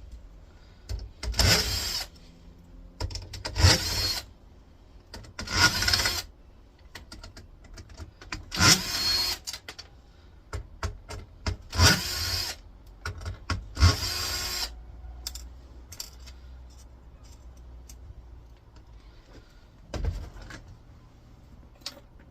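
Cordless power screwdriver whirring in about seven short bursts as screws are driven out of the monitor's back piece, then lighter clicks of parts being handled and a single knock near the end.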